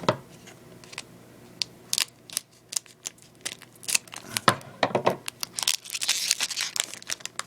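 A foil Pokémon TCG booster pack wrapper being torn open and handled: scattered sharp crinkles and clicks, with a denser stretch of crackling near the end.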